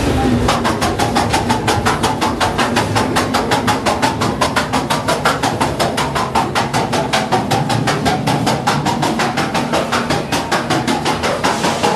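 Fairground ghost train ride running, a rapid steady clattering of about seven or eight clicks a second as the car travels along its track.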